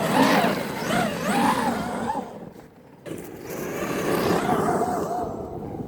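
Electric RC monster truck's motor whining as it is throttled, in two bursts with a short lull between, the pitch rising and falling with the throttle.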